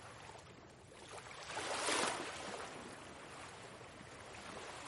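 Soft ocean waves washing on a shore. One wave swells and peaks about two seconds in, then ebbs to a low wash.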